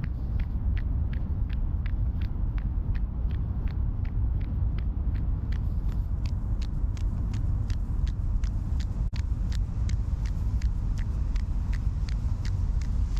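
A runner's footfalls in running sandals on wet pavement, a steady stride of nearly three steps a second, over a constant low rumble.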